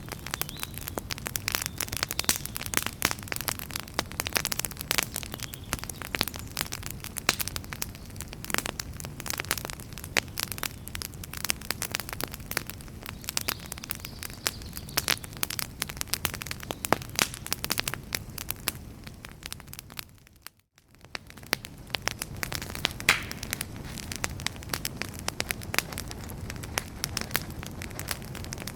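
Wood fire burning in a fireplace: dense, irregular crackling and popping of burning logs over a steady low noise of the flames. About two-thirds of the way through, the sound fades out to near silence for under a second, then fades back in.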